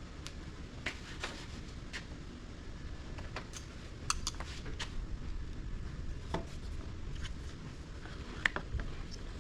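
Irregular light clicks and ticks of small metal wiring parts, spade terminals and a connector, being handled and worked with small hand tools. A steady low hum sits underneath.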